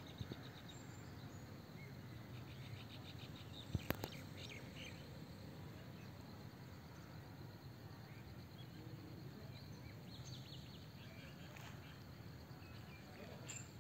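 Faint open-air ambience with a low steady rumble, broken by several bursts of rapid, high-pitched chirping. Two sharp knocks just before four seconds in.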